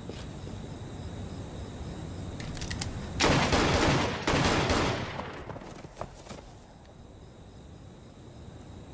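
Night-time crickets chirring steadily. About three seconds in, a loud rushing burst of noise lasts about two seconds in two surges and dies away, with a few sharp clicks just before and after it.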